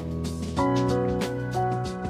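Instrumental background music with sustained chords over a steady beat, the chord changing about half a second in.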